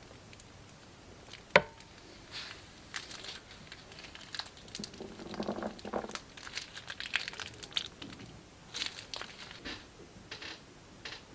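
Crinkling and small crackles from plastic piping bags and slime being handled, with one sharp click about one and a half seconds in.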